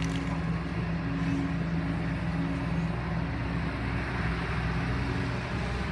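Diesel engine of a Kobelco SK140-8 excavator running steadily.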